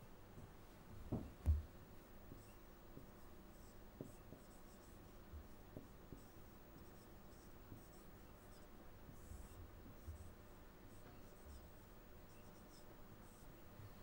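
Whiteboard marker scratching and squeaking faintly across a whiteboard in short strokes while writing, with two low thumps about a second and a half in.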